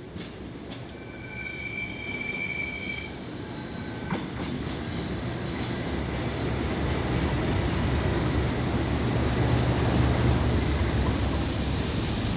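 English Electric Class 37 diesel locomotive approaching and passing, its V12 diesel engine growling louder and peaking about ten seconds in. There is a brief high squeal a second or two in and a single sharp knock about four seconds in.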